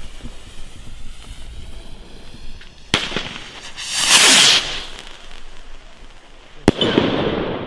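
Funke Titanium firework rocket: a sharp crack about three seconds in, then the rushing whoosh of the rocket lifting off. A sharp bang of its burst comes near the end and trails off.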